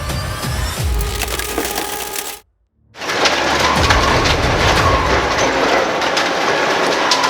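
Heavy shredding machine grinding and splintering material, full of cracks and crunches. It cuts out for a moment about two and a half seconds in, then a second, denser stretch of grinding follows.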